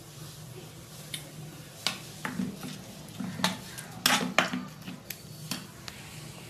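Steel spoon scraping and clinking against a small stainless-steel kadai as thick chickpea chutney is stirred. There are several sharp knocks, the loudest about four seconds in, over a low steady hum.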